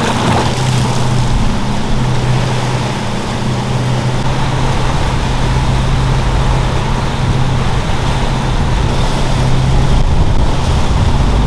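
A boat's motor running steadily at speed with a low hum, over the loud wash of water rushing past the hull.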